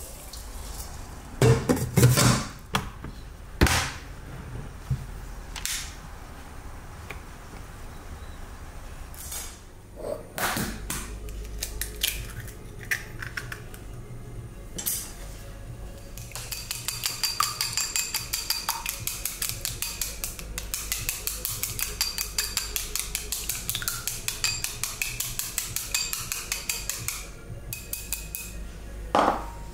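A few sharp knocks of crockery on a counter, then wooden chopsticks beating egg in a small ceramic bowl: a quick, even clicking of about four strokes a second that lasts some ten seconds and stops shortly before the end.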